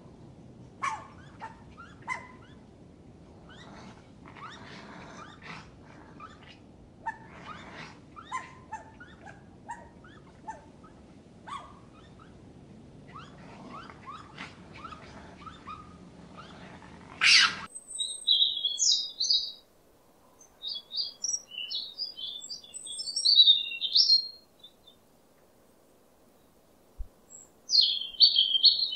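Short, repeated animal calls over a steady background hiss, ending abruptly about 17 seconds in. After the cut, a small songbird chirps and twitters in quick, high bursts.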